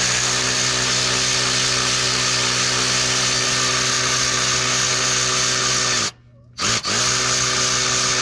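Handheld electric power driver spinning a 10 mm socket to run a bolt out. It runs steadily for about six seconds, winds down, gives a short blip, then spins up again near the end.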